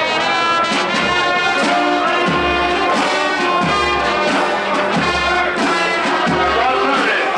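Brass band playing a tune with trumpets and trombones over a repeated low bass pulse.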